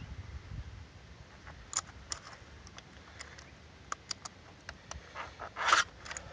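Chainsaw file scraping across a cutter on the Stihl MS 290's chain: scattered light metal clicks and ticks, then one clear file stroke near the end.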